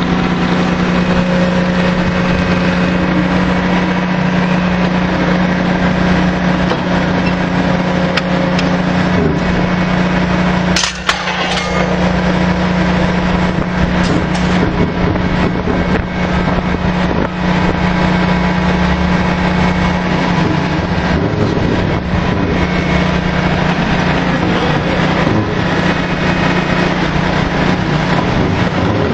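Drilling rig machinery running steadily during a casing run: a loud, continuous engine drone with a strong steady low hum, briefly dipping about eleven seconds in.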